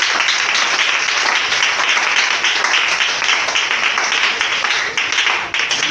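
A congregation clapping and applauding together, a dense continuous clatter of many hands.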